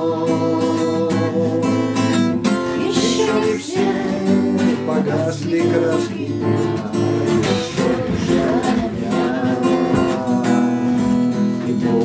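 Steel-string acoustic guitar strummed in a steady rhythm, playing a song's chord accompaniment.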